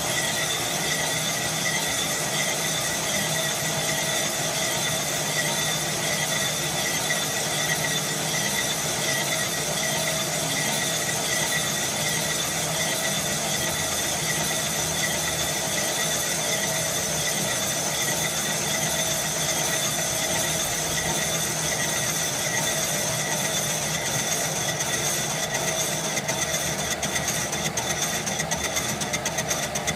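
Boxford STS lathe running while it machines a Stuart steam engine flywheel, with a steady high squeal from the cutting tool. Near the end a fast, regular pulsing comes into the sound.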